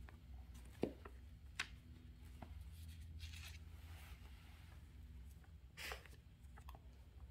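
Faint rustling and light ticks of thin Bible paper as pages are flipped and the book is handled, a few short clicks and brief rustles over a low steady hum.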